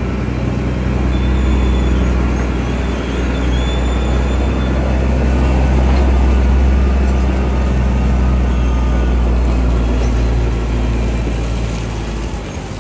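A large engine running steadily with a low, even rumble, easing slightly near the end.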